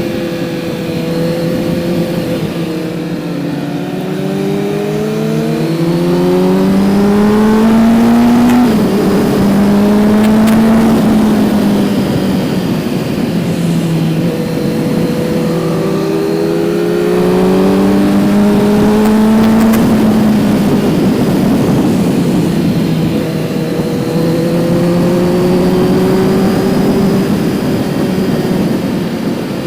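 Kawasaki Z900's inline-four engine heard from onboard the moving motorcycle, its pitch climbing and dropping several times as the rider accelerates and eases off, over a steady rush of wind noise. It is loudest around a third of the way in and again about two-thirds in.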